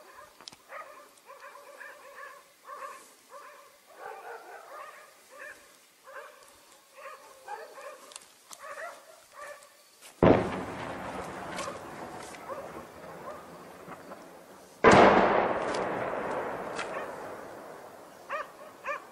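Dogs barking repeatedly, then two heavy shell explosions about four and a half seconds apart, each a sudden loud boom that dies away slowly over several seconds; the dogs bark again briefly near the end.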